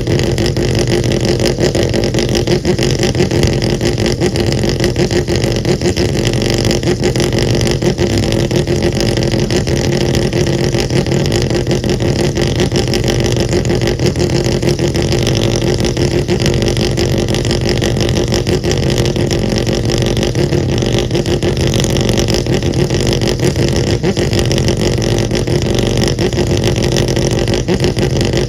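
The Mazda 787B's four-rotor R26B rotary engine running loud and steady, its pitch holding level with no revs rising or falling.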